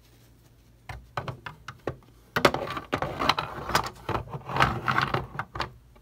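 Handling noise of plastic toy horse figures and stable pieces: irregular clicks and taps starting about a second in, then a busy run of knocks and rustling for a few seconds.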